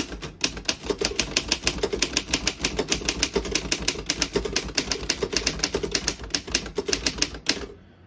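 A 1936 Underwood 12 desktop typewriter being typed on at a steady pace: a quick, even run of sharp key clacks, several a second, stopping shortly before the end. The keys strike cleanly, none skipping or sticking.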